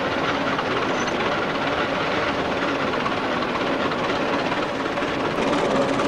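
Vintage tractor engine running steadily as it pulls a trailed plough through stubble.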